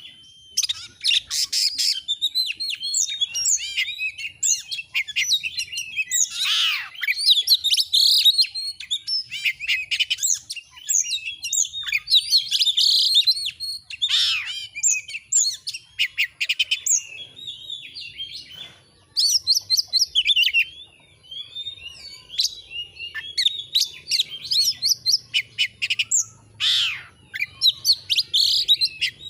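Oriental magpie-robin singing in full song: a fast, varied stream of whistles, trills and chirps, with two short breaks past the middle.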